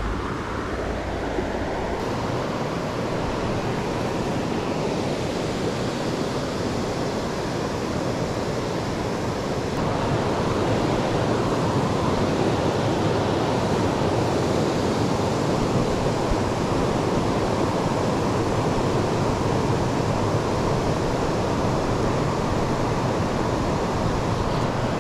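Shallow stream water rushing over stones and riffles, heard close by as a steady wash that gets a little louder about ten seconds in.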